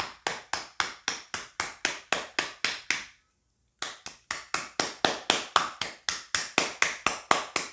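Fingertips tapping firmly and quickly on the body of a Mi smartphone, about four taps a second, with a short pause just after three seconds in. The taps are meant to knock loose camera parts inside the phone back into place.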